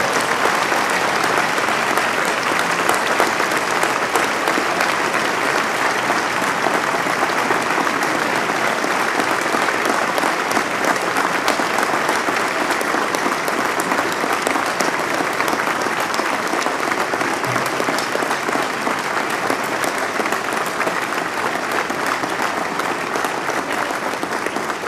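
A large crowd applauding: dense, steady clapping held for a long ovation, easing slightly near the end.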